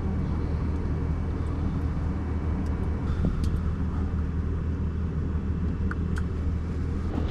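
Pickup truck engine running with a steady low drone, loud through its broken muffler.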